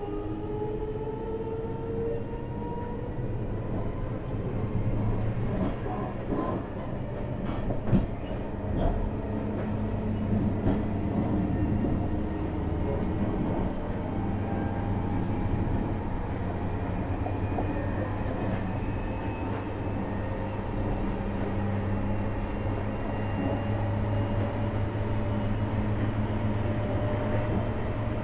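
JR Hokkaido 733 series 3000 EMU running, heard from inside a motor car: the traction motors give a whine that rises slowly in pitch as the train gathers speed, over a steady rumble of wheels on the rails. A single sharp knock comes about eight seconds in.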